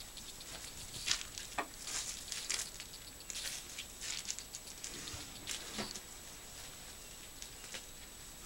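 Irregular rustling and crackling of dry leaves and litter on the ground as elephants forage and shift their feet close by, with a couple of deeper crunches about a second and a half in and near six seconds.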